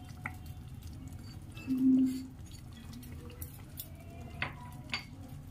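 Soft, faint taps and patter of grated boiled egg being sprinkled onto a thick curry, over a low steady hum, with a short low tone about two seconds in.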